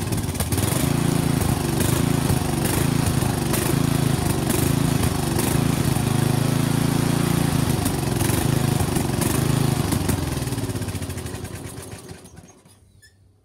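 Craftsman riding mower's swapped-in pull-start engine running steadily, with a sharp tick about once a second, then running down and stopping about eleven to twelve seconds in.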